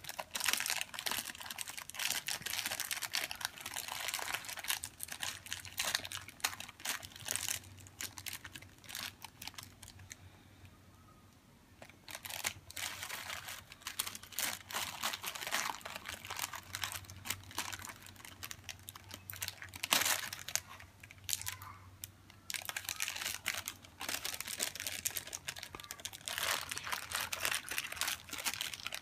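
Graham cracker package crinkling and crackling as it is handled and opened, in dense irregular bursts with a quieter lull about ten seconds in and one sharper crack about twenty seconds in.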